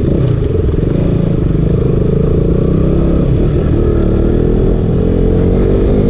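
KTM RC 200's single-cylinder engine running on the move, its revs climbing steadily through the second half.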